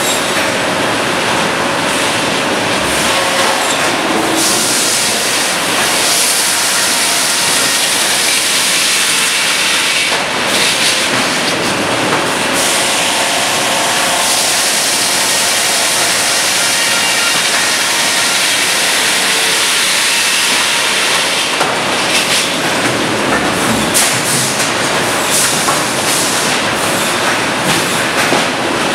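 Sawmill machinery running steadily and loudly: the Cleereman log carriage travelling on its track, with the headsaw cutting. For several seconds in the first half the noise turns brighter and hissier.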